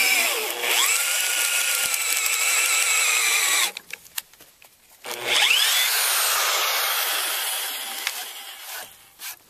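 Corded Milwaukee Magnum Hole Shooter drill boring a 1.5-inch auger bit into a timber beam, the motor whining as the bit chews through the wood. It spins up with a rising whine, runs about three and a half seconds, stops briefly, then spins up and drills again before running down near the end.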